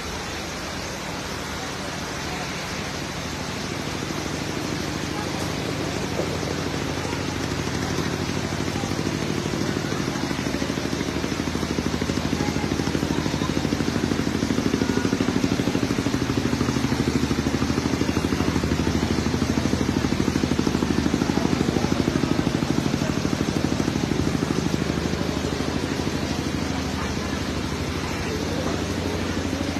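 An engine running steadily, growing louder through the middle and easing off a little near the end, over the steady hiss of heavy rain.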